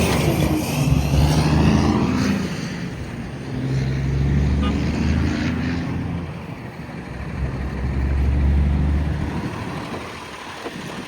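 Motor vehicle engines running and passing, swelling and fading in level three times.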